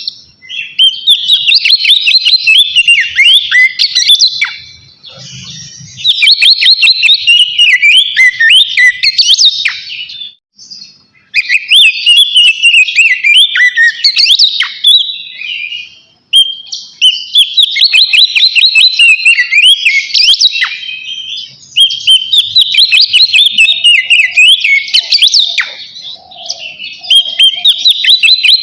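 Oriental magpie-robin (kacer) giving its loud, full song: fast, varied whistled phrases in six bouts of a few seconds each, with short pauses between them.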